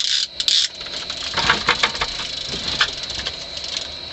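Fishing reel clicking rapidly in uneven runs as line is worked on a fish, over a steady high-pitched thin tone.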